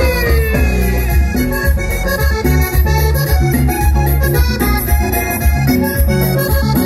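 Live band music led by an accordion, over heavy bass and drums in a steady dance beat, played loud through PA speakers.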